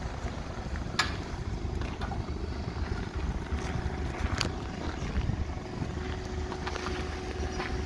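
Propane tank bracket on a Toyota forklift swung back into place, with a sharp metal clunk about a second in and another click a few seconds later. A steady low rumble runs underneath.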